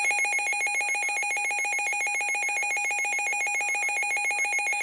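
Weather radio's electronic alert alarm sounding continuously: a steady tone under a higher tone that warbles rapidly between two pitches, trilling like a phone ringer. It signals an incoming emergency weather warning.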